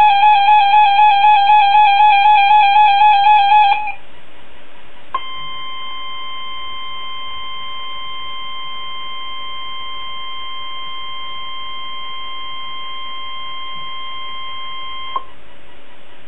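NOAA Weather Radio 1050 Hz warning alarm tone sounding steadily for about ten seconds over radio hiss, sent to activate weather alert receivers for the weekly test. Before it, a louder warbling electronic tone pulsing three or four times a second cuts off about four seconds in, leaving a moment of bare radio hiss.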